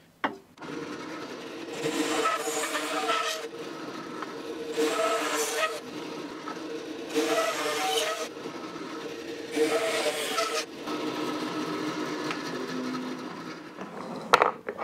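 Bandsaw running with a steady hum, cutting through epoxy-resin and craft-paper micarta cylinders: five louder passes of the blade through the material, each lasting one to two and a half seconds.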